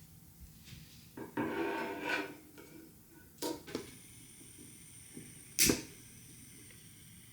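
Handling sounds in a small room: a brief rustle, then a couple of light clicks and one louder sharp click.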